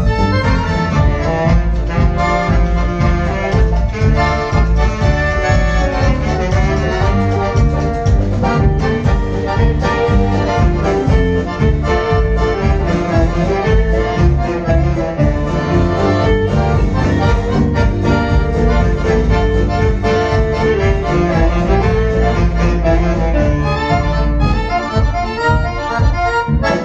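Accordion playing the lead melody with a live dance band behind it: drums, bass, piano and electric guitar.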